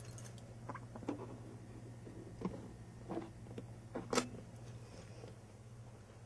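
A Chihuahua puppy scrambling about, giving scattered short knocks and scuffles; the loudest pair comes about four seconds in. A steady low hum runs underneath.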